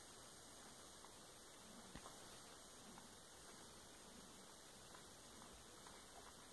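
Near silence: faint steady hiss of room tone, with a few tiny faint ticks.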